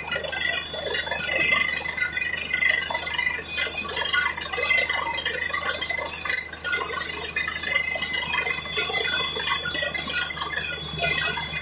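Truck-mounted borewell drilling rig running steadily, with a steady high whine over a low hum and scattered metallic clinks as the drill rod turns in the hole. Water and cuttings are being flushed up out of the bore around the rod.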